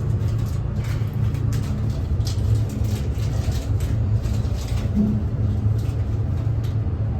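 Passenger elevator cab travelling upward at speed: a steady low rumble of the moving car, with faint light clicks and rattles.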